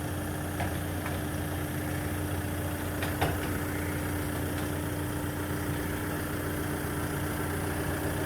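Engine idling steadily with a low hum and a steady tone, with a few short knocks, the loudest about three seconds in.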